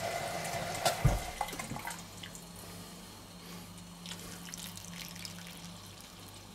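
Water running, then a sharp clunk about a second in, after which the running stops. Water then trickles from a plastic measuring jug into a steel pot of boiling water.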